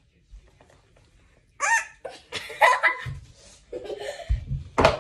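Girls laughing and giggling in short, breathy bursts, starting about a second and a half in. A sharp knock comes near the end.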